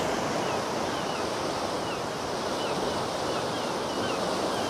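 Sea surf washing steadily onto the shore on an incoming tide: a constant, even rush of breaking waves.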